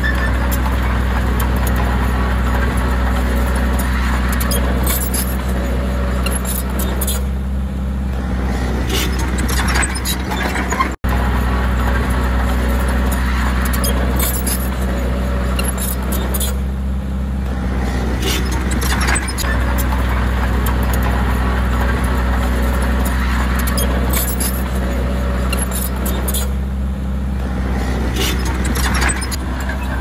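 Komatsu D20P crawler bulldozer's diesel engine running steadily, with scattered metallic clinks and clanks from the machine working.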